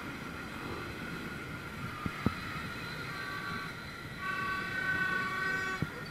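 Crowded motorbike traffic running at low speed, a steady engine rumble. A held, horn-like tone sounds about three seconds in and again more strongly from about four to six seconds, and sharp pops come twice near two seconds and once near the end.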